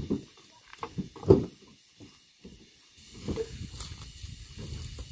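Wooden knocks of firewood logs being dropped and stacked in a pickup truck bed: a few sharp knocks, the loudest a little over a second in, followed by steady scuffing and rustling of the wood being handled.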